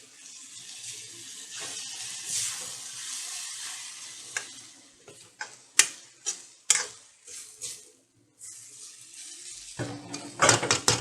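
Banana flower stir-fry sizzling in a pan as it is mixed, with a metal spatula scraping and knocking against the pan. The hiss fades after about four seconds into a run of sharp separate knocks, with a louder flurry of knocks near the end.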